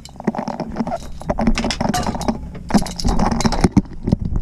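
Irregular rattling and metallic clinking of fishing gear and landing net as a Spanish mackerel is netted and brought aboard a boat.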